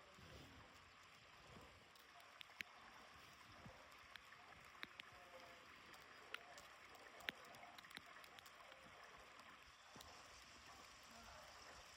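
Near silence: faint background hiss with a few scattered soft clicks.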